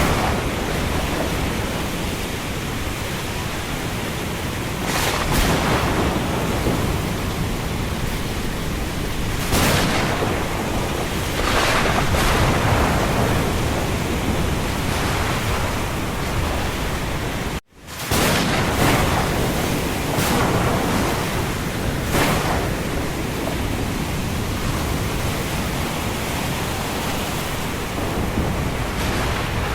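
Thunderstorm: a steady rush of heavy rain and wind with low thunder rumbling, and several brief louder surges. The sound cuts out for an instant a little past halfway.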